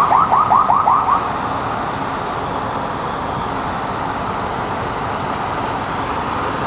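Heavy-haul trucks hauling an oversize load pass with a steady noise of engines and tyres. Over the first second a rapid run of electronic chirps, about six a second, comes from a siren or warning device, then stops.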